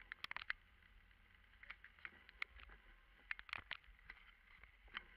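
Faint cab sound of a 1995 Jeep Wrangler driving in rain: a low steady rumble with scattered light ticks and taps, which come in a few short clusters.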